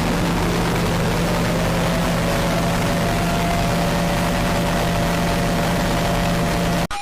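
A loud, steady roar over a low hum, with two pitched tones that rise over the first three seconds and then hold. Near the end it cuts off abruptly into a quick series of short electronic beeps at changing pitches.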